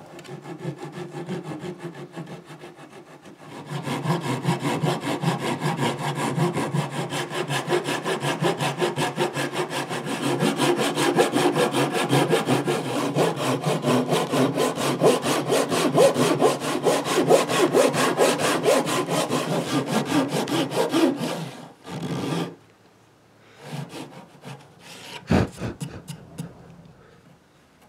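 Hand saw cutting through a block of wood in rapid back-and-forth strokes: light at first, then steady and stronger, stopping about 22 seconds in. A single sharp knock comes a few seconds later.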